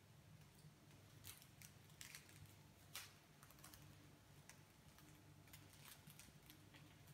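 Faint, scattered clicks and taps of kittens' claws and paws on a tiled floor as they bat at a moth, the sharpest about three seconds in, over a low steady hum.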